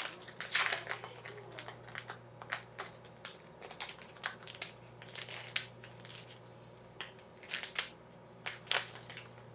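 Wrapper of a 2018 Bowman baseball card pack being torn open and handled: a run of short crinkles and crackles, busiest at first and then in scattered bunches.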